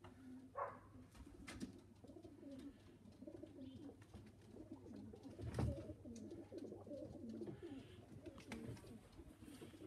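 Faint cooing of pigeons, with a single knock a little past halfway.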